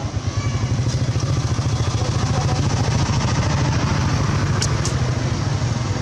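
Motorcycle engine running steadily close by, a low even pulsing hum, with two sharp clicks a little before the end.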